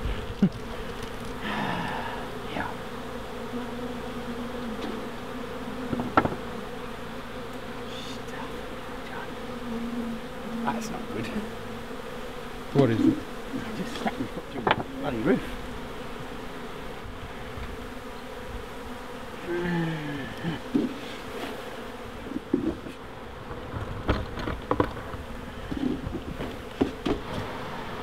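A honey bee colony buzzing steadily as its chimney nest is opened. A few louder buzzes sweep up or down in pitch, with occasional knocks.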